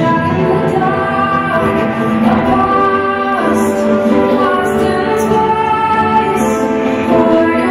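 Music with a woman singing long, held notes over the accompaniment.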